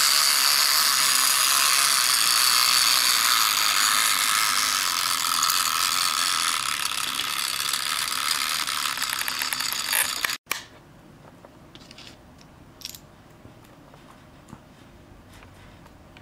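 Toy fishing game's turning pond and plastic gear mechanism running with a steady rattling whir, which cuts off abruptly about ten seconds in. A few faint clicks follow.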